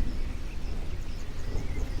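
Small birds chirping in short high calls over a continuous low rumble.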